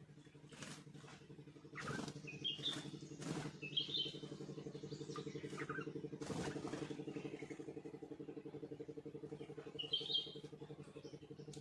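Small birds chirping in short calls, in clusters a few seconds in and again near the end, over a steady low engine hum. A few brief rustling noises come in the first half.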